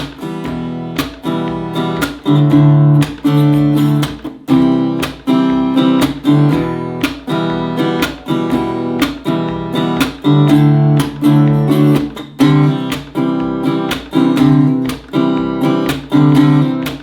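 Acoustic guitar strummed in a steady campfire pattern, with the hand dropped onto the strings for a percussive slap on beats 2 and 4 like a snare drum. It plays two bars of E minor, one of D and one of C.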